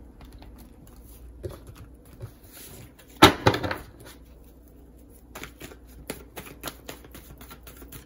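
A tarot deck being shuffled by hand: a run of light card taps and flicks, with one louder burst of card noise about three seconds in.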